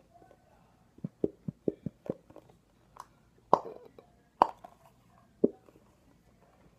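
Squeeze bottle of glue sputtering and popping as it is squeezed into a bowl: a quick run of about six small pops, then a few louder ones spaced out. The bottle is nearly empty, pushing out air with the glue.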